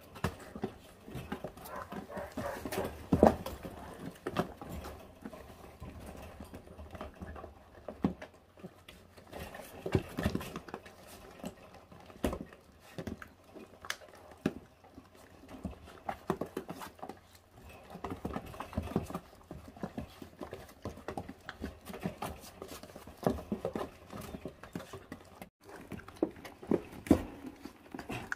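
Four-week-old puppies chewing, gnawing and tearing at raw meat and bone: irregular short clicks and knocks with louder spells every few seconds.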